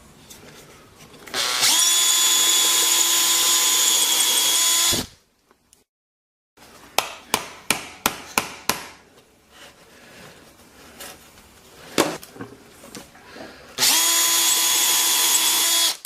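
Electric drill running at a steady speed while boring bolt holes, in two runs of about three and two seconds. Between the runs come a series of sharp clicks and knocks.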